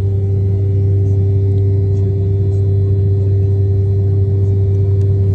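Jet airliner's engines heard from inside the passenger cabin: a loud, steady drone with a deep constant hum and a fainter steady higher tone.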